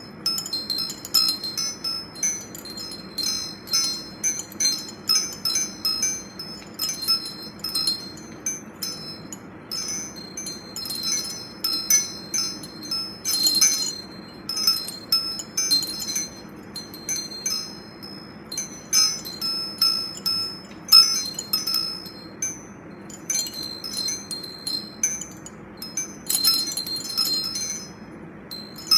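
Metal wind chimes tinkling: irregular clusters of strikes, several a second, each ringing with bright, high tones.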